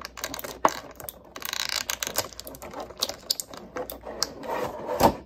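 Small plastic parts of a Mega Construx Master Chief minifigure clicking and rattling as it is handled. There is a short rustle about a second and a half in and a sharp loud click near the end.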